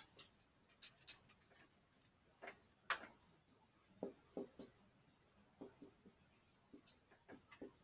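Dry-erase marker writing on a whiteboard: faint, short, irregular squeaks and taps as the words are written, with one sharper tap about three seconds in.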